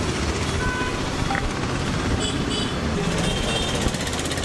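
Street noise: a steady low rumble of vehicle engines, with a few brief high beeps partway through.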